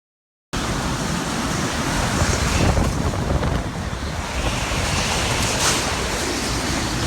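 Typhoon storm noise starting suddenly about half a second in: a loud, continuous rush of wind and water with heavy wind buffeting on the microphone, swelling a little a few seconds in.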